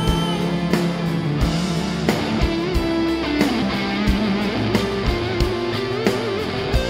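Live rock band playing an instrumental break: an electric guitar lead line with bent notes over a steady drum beat and bass.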